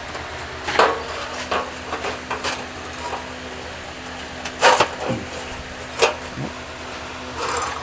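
Hand tools clinking and knocking against metal, about six short sharp strikes spread over several seconds, as a nut driver or socket is picked up and set onto a small nut on the fire pit's igniter.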